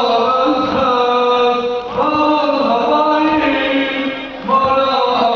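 Ashura mourning chant, sung in long held phrases, with a new phrase starting about every two and a half seconds.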